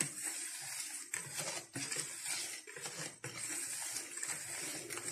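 Wire whisk working cake batter in a plastic bowl: a run of soft, wet swishing strokes with short breaks between them. The batter is being folded gently so the air beaten into the eggs stays in.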